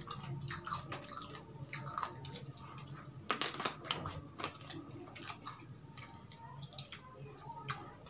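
Chewing and biting on fried chicken: a steady run of short, soft mouth clicks.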